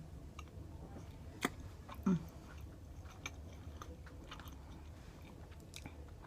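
A person chewing food, with scattered small wet mouth clicks and a sharper click about a second and a half in, then a brief low sound just after two seconds, over a faint steady low hum.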